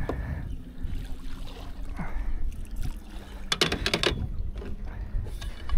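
Wind buffeting the microphone in a low, uneven rumble, with a short burst of rattling clicks about three and a half seconds in.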